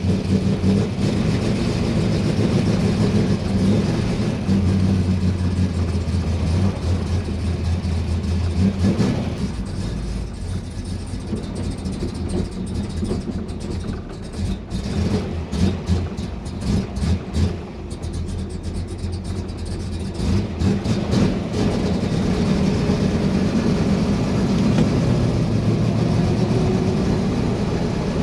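1963 Corvette's V8 engine driving on the road: steady under power at first, softer and uneven through the middle as it eases off, then climbing in pitch again near the end as it accelerates.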